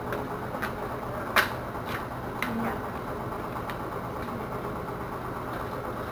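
A steady low mechanical hum, like an idling engine, with a few sharp clicks, the loudest about one and a half seconds in.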